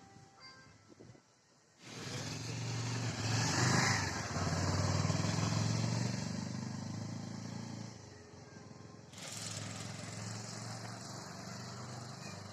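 A motor vehicle's engine running with a low steady hum under loud wind rush, starting suddenly about two seconds in, easing around eight seconds and cutting back in sharply about nine seconds in.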